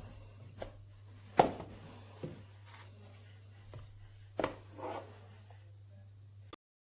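Several scattered knocks and clicks, the loudest about one and a half seconds in, over a steady low hum. The sound cuts off abruptly near the end.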